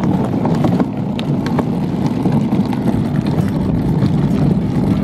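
Hard plastic wheels of a children's pull wagon rolling over asphalt: a steady rumble with small clicks and rattles.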